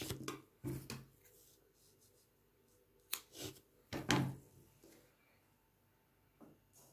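A few short knocks and rustles of small objects being handled and set down on a table, the sharpest about three and four seconds in.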